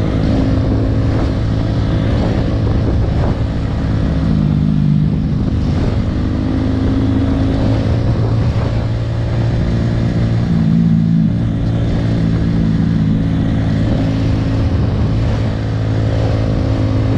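Motorcycle engine running steadily at cruising speed, heard from the bike itself, with brief shifts in pitch about four and eleven seconds in.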